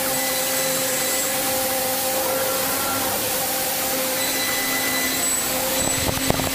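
CNC milling machine face-milling a metal block: a steady cutting hiss with a constant whine of several tones. A few sharp knocks come near the end.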